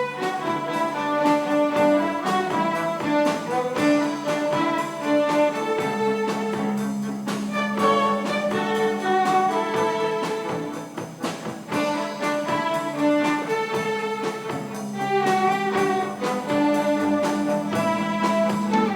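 Instrumental music: busy melodic lines of quick, sharply struck notes over a long held low note that comes in about six seconds in, with no singing.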